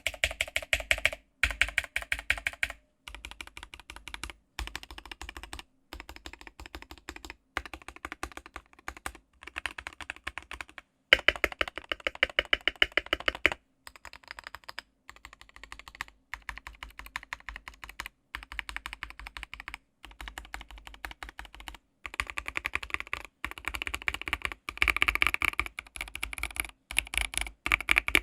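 Mechanical keyboard fitted with lubed Tecsee Jadeite switches, keys pressed rapidly in runs of clicks lasting a second or two, with brief pauses between runs.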